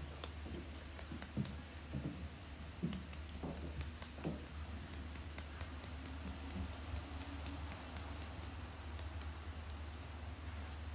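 Faint scattered ticks and clicks of a smartphone being handled, over a steady low hum.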